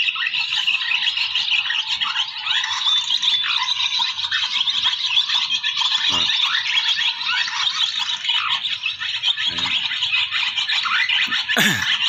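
Dense chorus of swallows twittering, a continuous mass of short overlapping chirps from a large flock gathering at a roost. A sharp click comes near the end.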